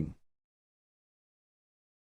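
Dead silence after the last word of a synthesized voice fades out in the first moment.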